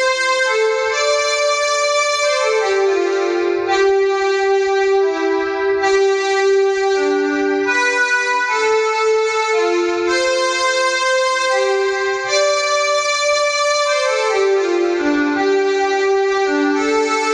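Electronic home keyboard voice playing a slow run of held, overlapping notes and chords in the middle register, with a bright, sustained tone. The notes change every second or two.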